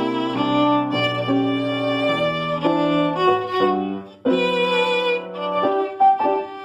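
Instrumental music led by a violin playing held notes over chords. The music drops out briefly about four seconds in, then returns with shorter, clipped notes near the end.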